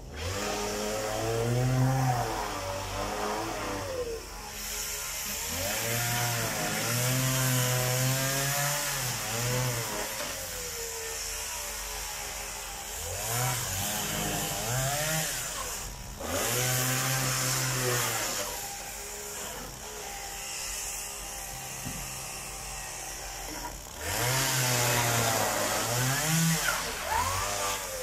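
Petrol chainsaw revving up and cutting through wooden pallet crates, then dropping back to idle between cuts, about five times over.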